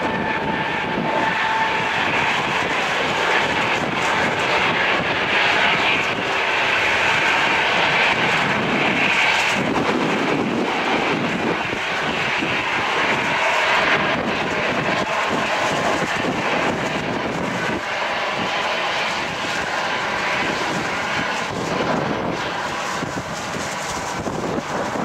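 Airbus A319 airliner's twin CFM56 turbofan engines running, a steady jet roar with a thin whine over it, as the aircraft lines up and rolls along the runway.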